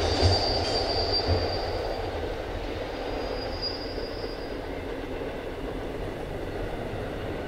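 Empty freight wagons rolling away around a curve, the clatter and rumble fading, with a high thin wheel squeal twice in the first half.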